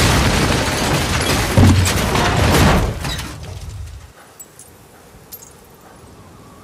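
Plate glass shattering in a big crash, with heavy deep thuds, for about three seconds, then dying away to scattered tinkles of settling glass fragments.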